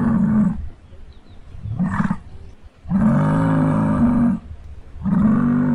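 Muskox bellowing: a series of deep roars with short pauses between them, the longest about a second and a half.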